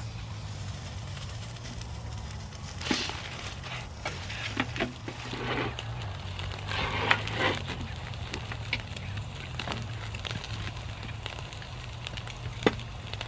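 A steak sizzling on a wire grill over burning charcoal, with the coals crackling and a few sharp clicks of metal tongs.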